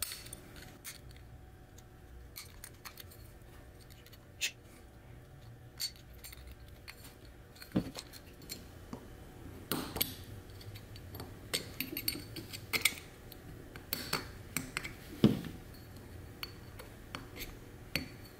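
Small, irregular metallic clicks and scrapes of a flathead screwdriver working a thin steel double spiral lock ring around the wrist-pin groove of an aluminum piston, seating it a bit at a time.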